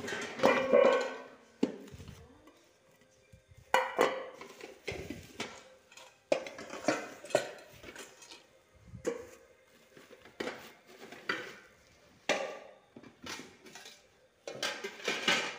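New metal cooking pots being unpacked and handled, knocking and clinking against each other, along with rustling cardboard and plastic packaging. The knocks come irregularly, some with a short ring.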